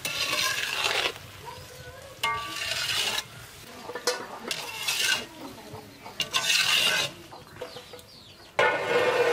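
A spatula stirring and scraping vegetables in a frying pan, in separate strokes about every two seconds over a steady sizzle.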